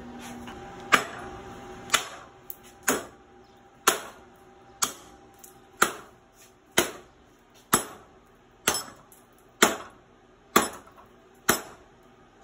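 A hand-forged chopper knife chopping into a wooden board clamped in a bench vise: a dozen sharp blows, about one a second, each with a short ring, in an edge-retention chop test.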